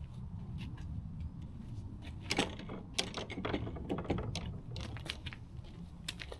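Low rumble of wind buffeting the microphone, with irregular sharp clicks and metallic clinks, the loudest about two and a half and three seconds in.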